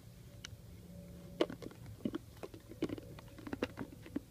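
A puppy licking and biting inside a plastic peanut butter jar: irregular wet smacks and clicks of tongue and teeth against the plastic.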